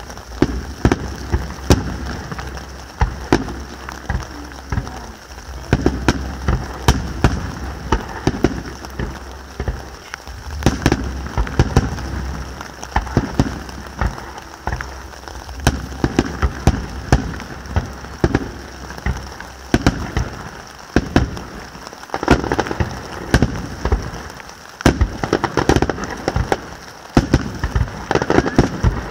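Fireworks display: aerial shells bursting in a rapid, unbroken string of sharp bangs over steady crackling, with a thick cluster of bangs near the end.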